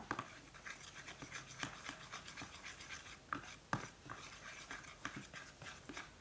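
Slime mixture of foam glue and activator being stirred in a container with a stirrer: irregular soft sticky clicks and wet ticks, with a few sharper ones near the middle, as the mixture starts to clump.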